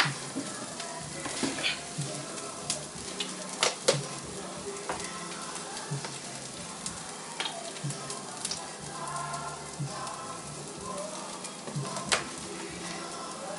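Ground turkey burger patties frying in a skillet: a steady sizzling hiss, broken by a few sharp clicks and pops.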